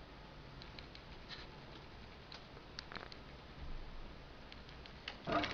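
Faint room noise with scattered light clicks and ticks. Near the end, an industrial sewing machine's motor switches on: a sudden rise into a steady hum with several fixed pitches.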